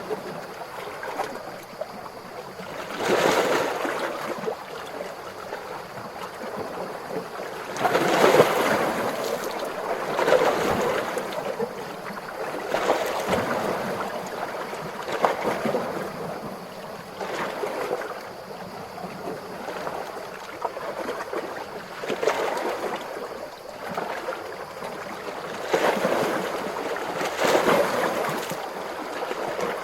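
Calm ocean waves washing in: a steady rushing wash that swells into a louder surge every few seconds, then fades again.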